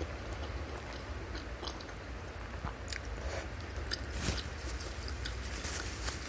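Close-miked chewing of a mouthful of beef tendon and fatty beef, with scattered wet mouth clicks and smacks over a steady low hum.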